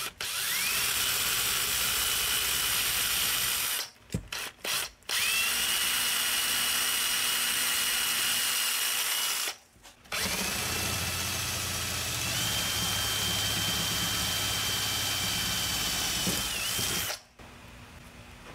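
Electric drill drilling out the flared studs that hold the cover on a heater control panel. It runs in three stretches of several seconds, with two short trigger blips between the first and second. Each time, the motor whine rises quickly to speed, then holds steady.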